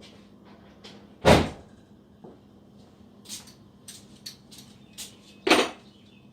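Two loud thuds about four seconds apart, with scattered light clicks and knocks between them, over a faint steady hum.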